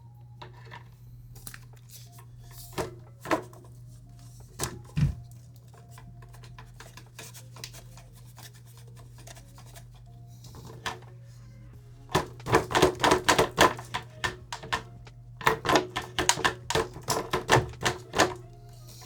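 Ninebot Max G2 electric scooter being flipped over and shaken: a few scattered knocks, then two bursts of quick rattling clacks, about twelve seconds in and again a few seconds later. The clacking is the loose module in the rear deck, missing its mounting screw, bouncing about.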